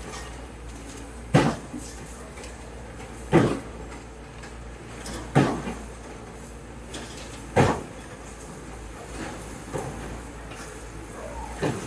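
Demolition excavators striking a reinforced-concrete building frame: four loud, sharp knocks about two seconds apart, then fainter knocks near the end, over the low steady hum of the diesel machines.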